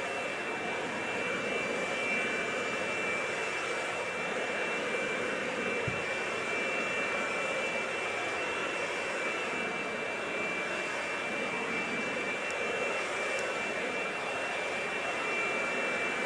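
Steady rushing outdoor background noise with two faint, steady, high-pitched whining tones running through it, and a faint knock about six seconds in.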